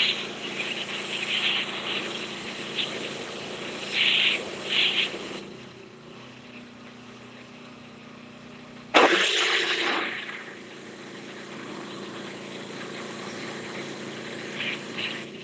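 Simpson 4200 PSI gas pressure washer running steadily while the high-pressure spray hisses against concrete steps. The spray stops about five seconds in, leaving only the engine running, then starts again with a sudden loud blast about nine seconds in.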